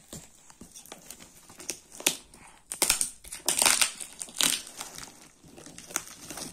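Plastic packaging crinkling and crackling as a parcel wrapped in a woven plastic cement sack and tape is handled. The crackles come unevenly and are loudest from about three to four and a half seconds in.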